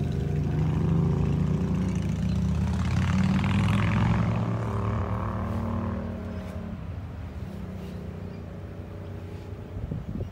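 An engine running close by, loudest for the first few seconds, with a rushing hiss swelling about three to four seconds in, then fading away.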